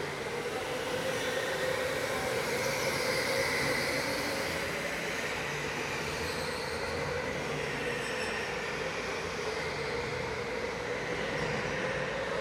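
Electric go-kart motor whining at racing speed, over a steady hiss of tyres on the track. The whine slowly rises and falls as speed changes.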